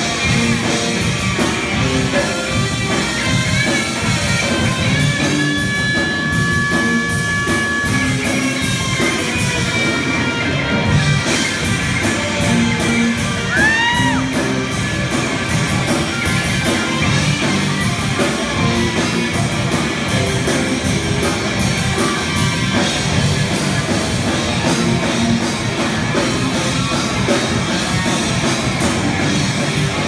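Live rock band playing: electric guitars hold sustained lead notes, with a bent note about fourteen seconds in, over drums with busy cymbals, bass and keyboard.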